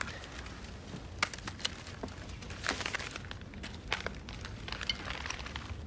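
Quiet room tone with scattered soft rustles and small clicks of clothing and hands moving, as one man rubs his hands together.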